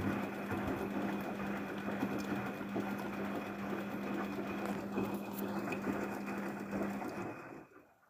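Daewoo DWD-FT1013 front-loading washing machine turning its empty drum on a drum-clean cycle: a steady motor hum with water sloshing in the drum, which stops near the end.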